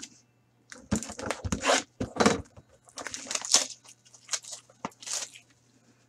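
Trading-card packaging being torn open and handled by hand: a string of short crinkling, tearing and scraping bursts for about four seconds, over a faint steady hum.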